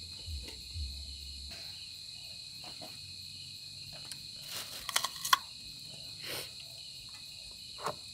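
Crickets chirping in a steady, unbroken high drone. A brief cluster of sharp clicks and rattles comes about five seconds in.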